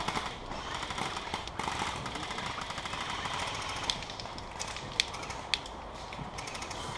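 Airsoft guns firing across the field: a run of small rapid clicks over a steady hiss, with three louder sharp cracks in the second half.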